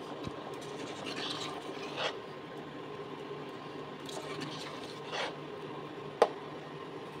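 Metal ladle stirring lentil stew in a pressure cooker pot, scraping against the pot's sides and bottom several times, with a sharp knock of the ladle about six seconds in, over a steady low hum.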